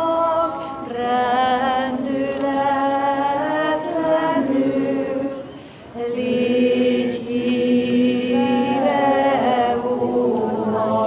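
A woman singing slow, long-held notes with a slight waver in pitch, breaking off briefly about halfway before carrying on.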